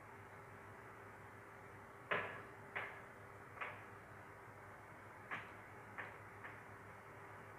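Six sharp knocks at uneven intervals, the loudest about two seconds in, over a faint steady hum.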